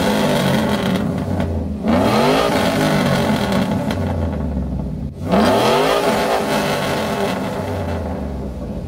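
Lowered Chevrolet Silverado pickup's engine revved in three long pulls: the pitch climbs, holds high for a few seconds, then drops, with fresh revs about two seconds in and again about five seconds in.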